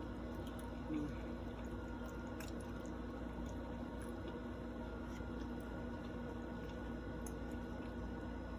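Faint wet chewing and squishing of food being eaten close to the microphone, with small scattered clicks and one slightly louder smack about a second in, over a steady low hum.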